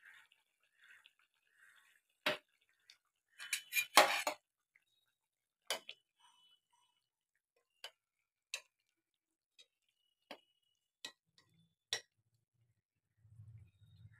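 A metal spoon knocking and scraping against a cooking pot as curry is stirred and ladled, a string of sharp clinks with the loudest cluster about four seconds in. Faint bubbling of the simmering curry at the start.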